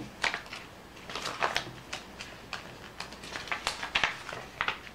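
Paper pages of a headset's multilingual instruction booklet rustling and crinkling as they are turned and handled: a string of short, irregular crackles.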